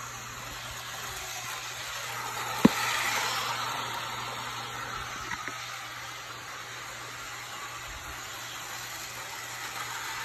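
Bachmann model train running on plastic track, a steady whirring hiss of its small motor and wheels that grows louder about three seconds in. There is one sharp click just before the swell and two faint clicks a couple of seconds later.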